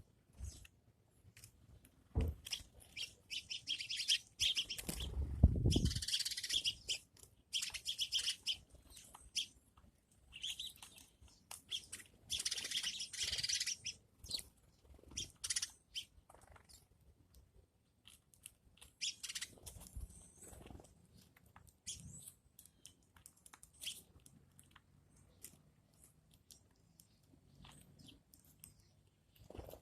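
A bird chirping in several short high-pitched bursts of a second or two, with scattered short clicks and taps in between.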